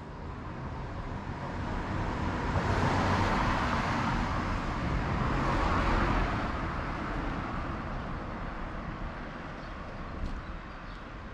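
A road vehicle driving past on a city street. Its noise grows louder over the first couple of seconds, stays loudest for a few seconds in the middle, then fades away.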